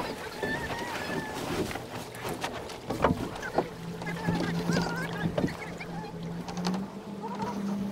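Racing keelboat deck noise as the jib sheet is worked: short squeaks of line running through blocks, scattered clicks and knocks of hardware, over wind and water noise. A low steady hum comes in about three and a half seconds in and rises slightly in pitch near the end.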